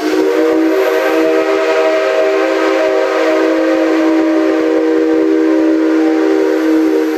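C57 steam locomotive's whistle sounding one long, steady blast of about seven seconds, which dies away near the end.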